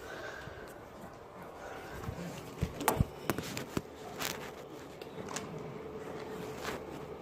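Handling noise on a phone's microphone as it is carried and swung about: a scatter of sharp knocks and rustles, loudest about three seconds in, with a faint steady hum coming in about halfway.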